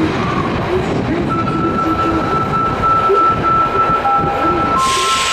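Osaka Metro Midosuji Line subway train running at an underground station platform. A steady high whine comes in after about a second, two shorter lower tones follow near the end, and a burst of hiss comes in just before the end.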